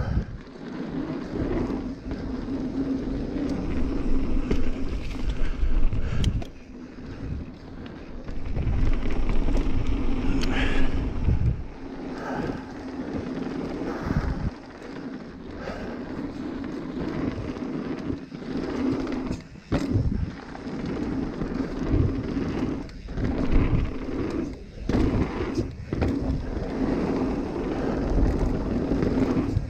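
Mountain bike rolling fast down a dirt singletrack: tyres on dirt and dry leaves, the bike rattling and knocking over bumps, and wind buffeting the microphone in uneven gusts, with a steady hum underneath.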